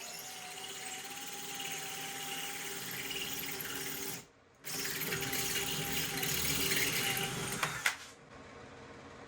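Cordless hammer drill boring a masonry bit into a concrete paver: a steady motor whine under a dense hammering rattle. It stops briefly about four seconds in, starts again, and cuts off about eight seconds in.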